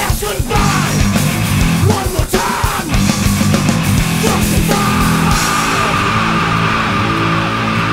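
Heavy rock band recording with distorted electric guitar, bass and drums. A little under five seconds in, the drum hits stop and held guitar notes ring on.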